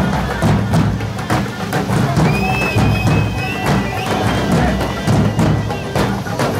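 Festive dance music with regular drum beats and sharp percussive strokes over a held melody line.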